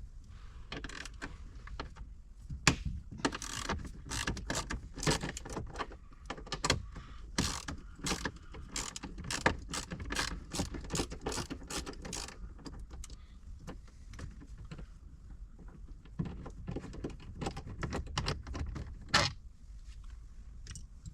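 Ratchet wrench clicking in quick runs as the 10 mm bolts holding a grab handle are backed out, with metallic clinks mixed in. There is a lull about two-thirds of the way through, then another run of ratcheting.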